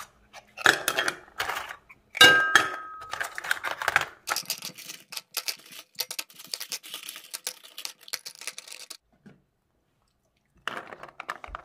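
Scallop shells clattering and clacking against each other and the pot as they are moved by hand from a metal colander into a white pot. Rapid clicks, with the loudest knocks in the first few seconds and one that rings briefly, a short pause, then more clicking near the end.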